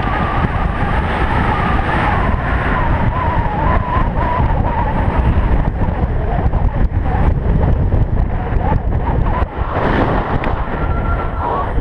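Wind rushing over a helmet-mounted action camera's microphone as an electric mountain bike descends a paved road at speed, with a wavering whine in the first few seconds.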